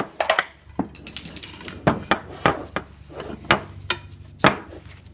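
Metal parts of a snake-grabber tool clinking and knocking as the handle is fitted onto the pole: about eight sharp, irregular clinks.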